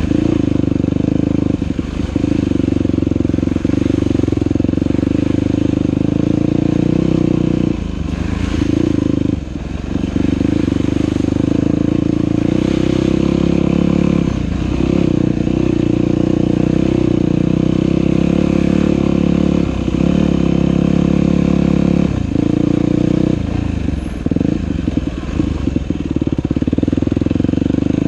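Dirt bike engine running steadily under throttle while being ridden along a trail. The engine sound drops briefly several times, where the throttle is eased off and picked up again.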